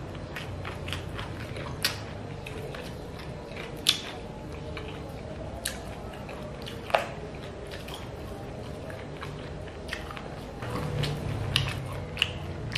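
Close-up chewing and biting on chicken feet in red chili sauce, with many scattered sharp clicks and a few louder snaps as the feet are bitten and picked apart.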